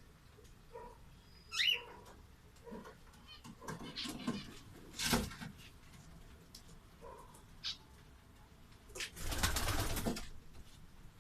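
Pigeons making short, soft calls amid scattered rustles, with a quick high chirp early on and a second-long flurry of rustling or flapping about nine seconds in.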